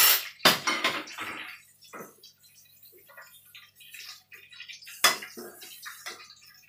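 Metal slotted turner clacking and scraping against a frying pan as minced pork and shrimp patties sizzle in oil. Sharp clacks come at the start, about half a second in and again about five seconds in.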